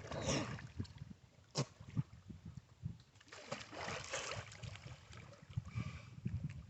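Water splashing and sloshing in irregular bursts, with a sharp click about a second and a half in and a low rumble underneath, as of a person moving in a river pool.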